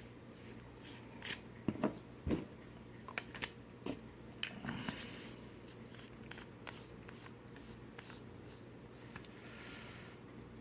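A flashlight being handled while its battery goes in: a run of small clicks and knocks, the loudest about two seconds in, thinning to faint ticks after about five seconds.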